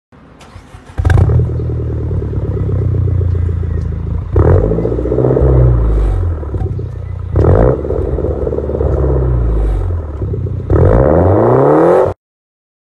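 An engine running and revving, surging suddenly four times with its pitch rising and falling, then cutting off abruptly.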